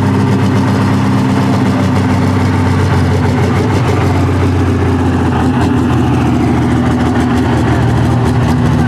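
Pro Stock pulling tractor's turbocharged diesel engine running steadily at idle after startup, loud, with a deep even drone.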